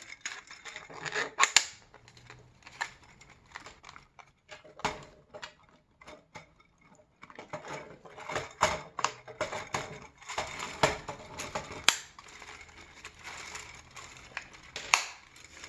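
3D-printed plastic parts clicking and clattering as they are handled, with several sharp snaps as the connector pieces are pressed tightly into the chassis plates.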